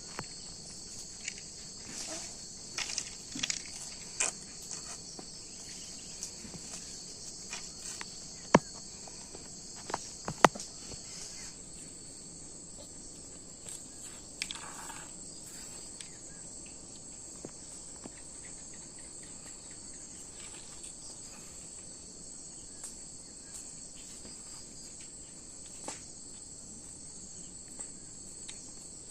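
A steady, high-pitched chorus of insects in the background, broken by a few sharp clicks or knocks, the loudest two about two seconds apart near the middle.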